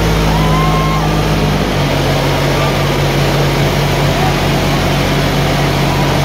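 Tractor diesel engines running hard under heavy pulling load. The steady low engine note drops a step about a second and a half in, then carries on with an even pulsing beat.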